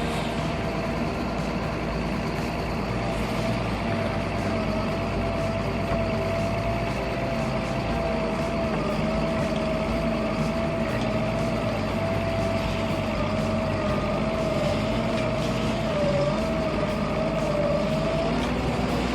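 A heavy forestry machine's diesel engine running steadily, with a steady whine over it that wavers slightly near the end.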